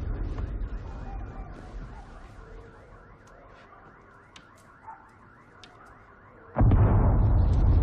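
A distant alarm siren warbling rapidly, several warbles a second, over a deep rumble that fades away during the first few seconds. About six and a half seconds in, a sudden loud deep rumble cuts in and continues.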